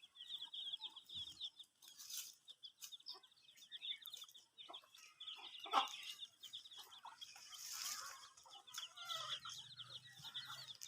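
Faint clucking of free-ranging chickens over a steady run of rapid, high-pitched cheeping from chicks.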